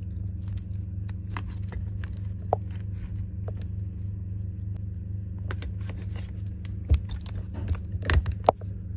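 Small scattered clicks and taps of handling at the bench, with a louder knock about seven seconds in and a few more just after eight seconds, over a steady low electrical hum.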